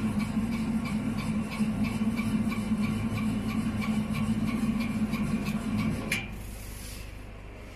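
Potato wedge cutting machine running with a steady low hum and light clicking, cutting off with a sharp click about six seconds in and leaving a quieter background hum.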